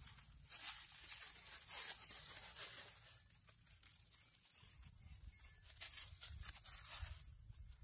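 Fresh green leaves rustling and tearing as they are picked and handled by hand, in irregular faint bursts.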